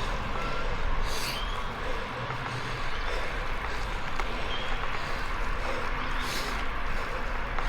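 A cyclist's heavy breathing under the effort of a steep climb, with two loud hissing breaths about a second in and again just after six seconds, over a steady low rumble of wind and riding noise.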